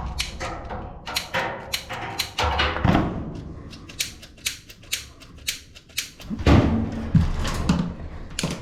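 Irregular sharp clicks and knocks, coming several a second in spells, from hands and tools working at an older gas furnace's pilot assembly. A low rumble joins them from about six and a half seconds in.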